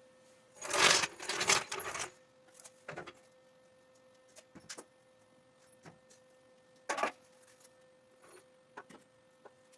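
Metal parts and hand tools clattering as they are handled, with a loud burst of rattling about a second in, then a few scattered clinks.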